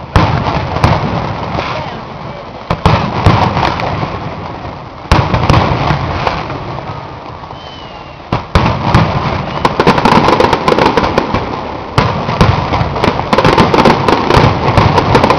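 Aerial firework shells bursting overhead. There are five loud bangs a few seconds apart, each followed by a rumble that dies away over a couple of seconds. From about the middle on comes a dense crackle of many small pops.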